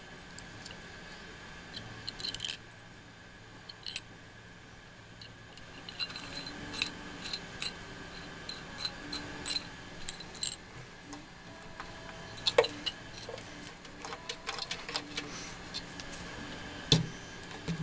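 Scattered light clicks, taps and rattles of small hard parts being handled, with a couple of louder knocks in the second half.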